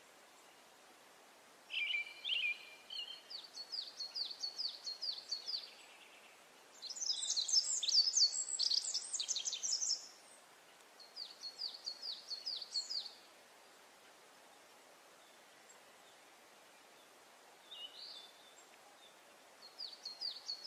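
Songbirds singing: several phrases of rapid, high, repeated chirping notes, with pauses between phrases and a busier stretch of overlapping song near the middle.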